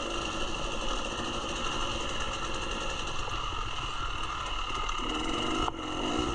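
Dirt bike engine running under load on the trail, its pitch wavering up and down with the throttle.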